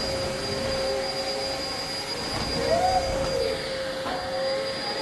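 A steady machine hum with a constant mid-pitched whine and a fainter high whine over it, and a brief rising-and-falling tone about halfway through.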